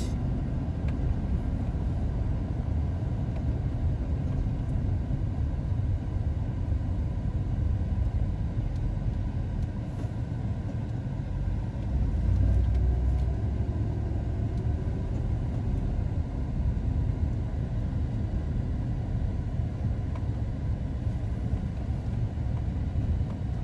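Steady low rumble of a car's tyres and engine heard from inside the cabin while driving, louder for a couple of seconds about halfway through.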